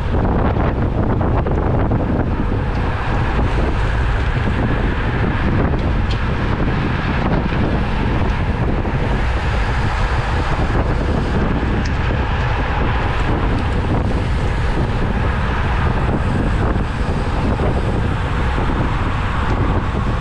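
Steady, loud wind noise from air rushing over the microphone of a cyclist racing at speed in a criterium pack.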